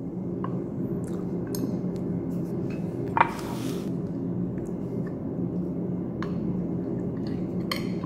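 Cutlery clinking lightly against a ceramic plate, with one louder clink about three seconds in followed by a short hiss. A steady low hum runs underneath.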